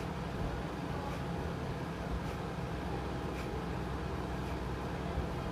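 Kapalbhati pranayama breathing: short, forceful nasal exhalations at medium pace, about one a second, heard as faint rhythmic puffs over a steady low background hum.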